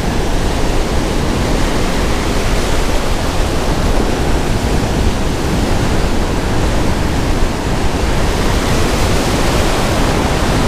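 Ocean surf breaking and washing in white foam: a loud, steady rush of water with no pauses.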